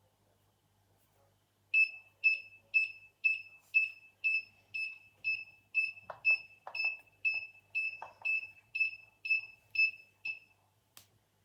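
An alarm system's buzzer beeping one high tone about twice a second, some eighteen short beeps in a row, then stopping. A few dull knocks sound midway, and a sharp click comes near the end.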